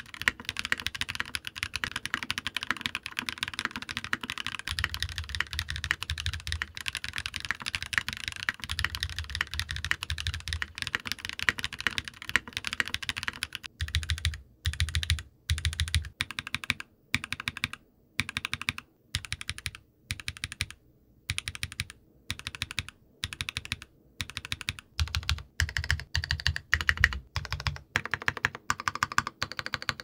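Mechanical keyboard typing on an aluminium gasket-mount keyboard with lubed KTT Red Wine linear switches and PBT keycaps. For the first half it is fast, continuous typing with Poron foam dampening the case. From about halfway in, the typing comes in short separate bursts with gaps between them, on the board with no foam inside.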